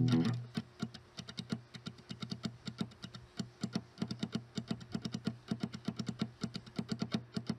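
Fast, even ticking, many clicks a second with a soft low pulse under them: the percussion track of a suspense film score, playing on its own while the guitar drops out.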